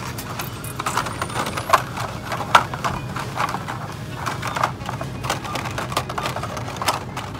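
Hot Wheels blister-card packages clacking and rustling against each other as a hand flips through them on a peg: a quick, irregular run of light plastic-and-cardboard clicks, with two sharper clacks about two seconds in.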